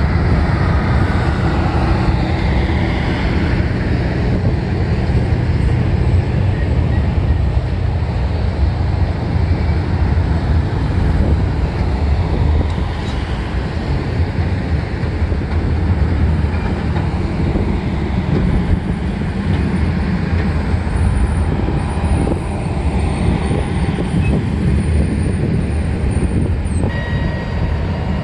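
Union Pacific passenger train cars rolling past at close range over a girder bridge: a steady rumble of steel wheels on the rails.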